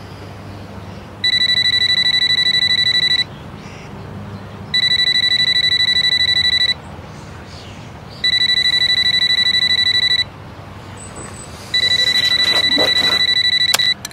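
Electronic alarm beeping: four bursts of about two seconds each, a high, rapidly pulsing tone, with short gaps between. The last burst breaks off in a short clatter just before the end.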